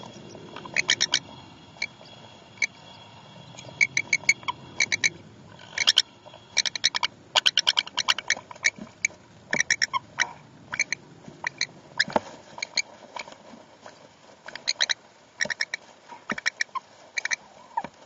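Sun conures making their mating sounds during copulation: quick clusters of short, high squeaky chirps repeated over and over, starting about a second in and coming thickest around the middle.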